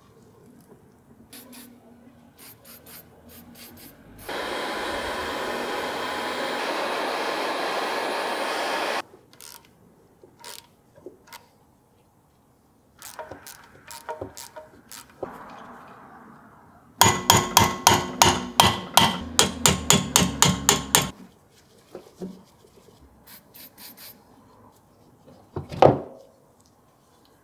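Hand tools working on an old Metabo bench grinder as it is taken apart. Light metal taps and a steady hiss lasting about five seconds come first, then a fast run of loud, ringing metallic clicks, about three or four a second for some four seconds, and a single heavy knock near the end.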